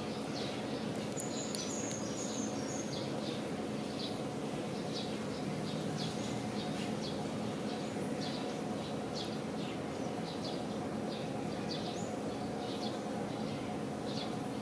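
Outdoor ambience: small birds chirping in short, repeated high calls over a steady low background hum.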